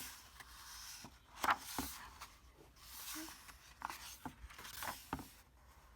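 Soft rustling and rubbing of paper with a few light clicks, as when a picture book is handled and its pages moved.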